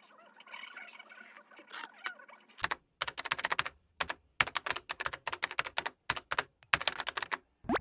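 Rapid typing on a computer keyboard: dense runs of key clicks in several quick bursts, broken by short gaps, starting about two and a half seconds in.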